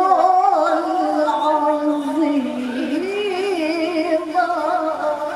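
A woman's solo voice in melodic, unaccompanied Quran recitation (tilawah), amplified through a handheld microphone. Long held notes waver and turn in ornaments, and the phrase tapers off near the end.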